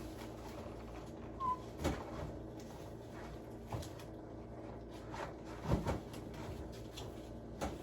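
Scattered light knocks and clunks of groceries being handled and set down while they are put away, with a brief high squeak about one and a half seconds in.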